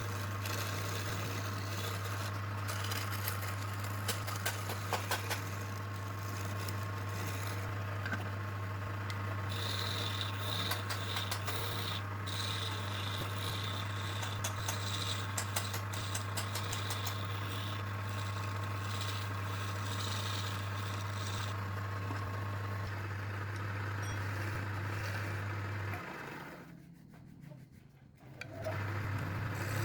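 An electric woodworking machine's motor hums steadily while wood is rubbed and scraped against it, with scattered light clicks. The hum cuts out a few seconds before the end and starts again just before the end.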